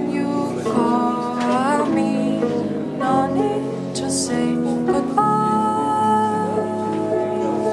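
Woman singing a song over acoustic guitar accompaniment, her voice holding one long note from about five seconds in.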